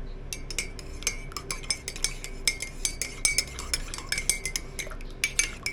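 A metal spoon stirring a drink in a glass, clinking rapidly and steadily against the glass with a short ringing tone at each strike, as honey is mixed into a hot turmeric and ginger drink.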